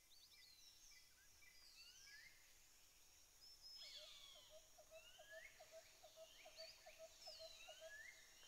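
Faint forest ambience of many birds calling: short chirps and rising and falling whistled notes. From about four seconds in, a steady run of short low notes repeats about three times a second.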